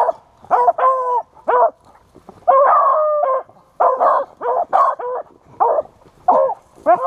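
Rabbit-hunting beagles giving tongue: a rapid series of short barks and bays, with one longer drawn-out bay about halfway through.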